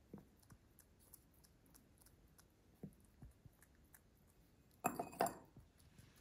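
Faint soft ticks of a rabbit grooming, then about five seconds in the rabbit knocks her white ceramic water bowl: two quick ringing clinks close together.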